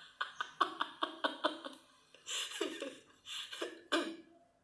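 A woman laughing: a quick run of short pulses, then a few breathy gasps of laughter later on.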